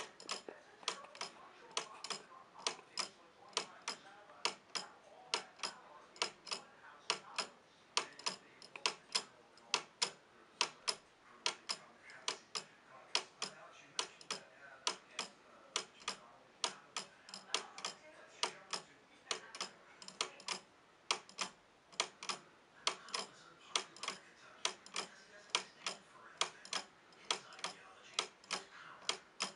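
Wooden-gear pendulum clock ticking steadily, the escapement giving sharp, even wooden clicks at about two and a half a second.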